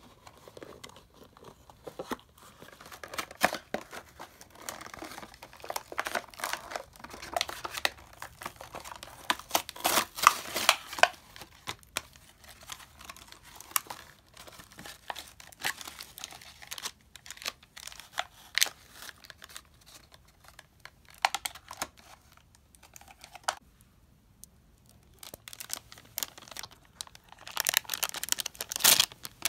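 A child's hands crinkling and tearing open plastic and cardboard toy packaging, in irregular spells of crackling and rustling, busiest about ten seconds in and again near the end.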